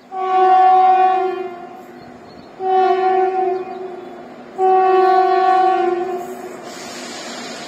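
Air horn of a WAG-7 electric locomotive hauling a freight train, sounding three loud blasts in a row; the second is the shortest and the last the longest.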